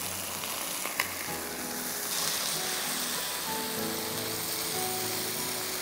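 Marinated chicken breast pieces sizzling in hot oil in a frying pan. The sizzle grows louder about two seconds in, with one sharp click about a second in. Soft background music plays underneath.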